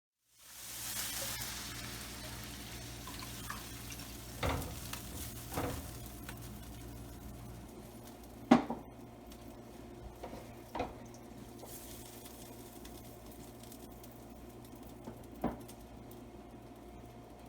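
Food sizzling in a hot wok, the sizzle loudest as it starts and slowly fading, with a steady low hum underneath. A handful of sharp knocks of a spatula against the wok, the loudest about eight and a half seconds in.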